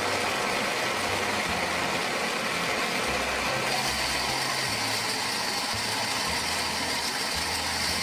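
Toy blender's small battery motor running steadily, with M&M candies tumbling and rattling around in its plastic jar.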